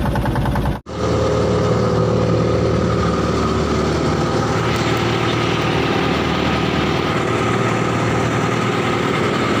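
Fishing boat's engine running steadily with a low drone. The sound drops out for a moment about a second in, then the drone carries on unchanged.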